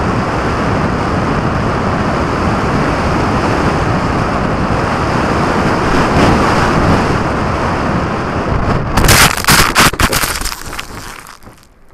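Air rushing past a camera mounted under a radio-controlled model plane's wing in flight, a steady wind roar with no motor tone. About nine seconds in the plane touches down, with a run of loud knocks and scraping as it skids through the grass, then the noise dies away as it comes to rest.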